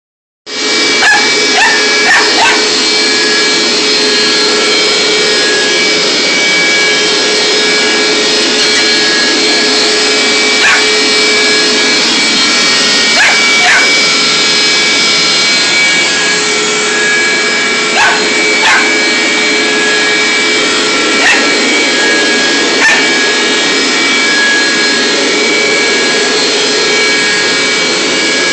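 Carpet cleaner running with a steady whine throughout, while a corgi puppy barks and yips at it about a dozen times: a quick cluster in the first few seconds, then scattered single and paired calls.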